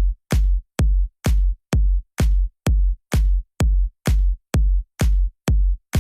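Electronic dance music with a steady drum-machine kick, about two beats a second, each beat cut off sharply, with short ticks between the beats.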